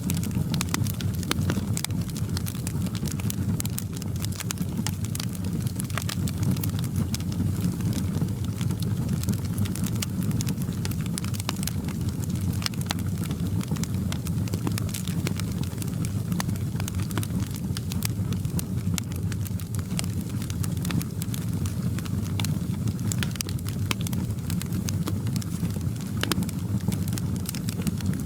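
Wood fire crackling in a fireplace: frequent small pops and snaps over a steady low rumble of the flames.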